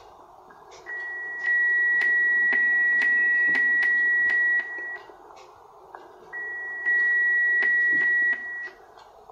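Joker SDR receiver's audio: band-limited receiver hiss with a steady, loud beat-note tone of a carrier, heard twice, first for about three and a half seconds from about a second in, then for about two seconds from about six and a half seconds in. Faint regular clicks run under it. This is a test of the receiver's digital filters.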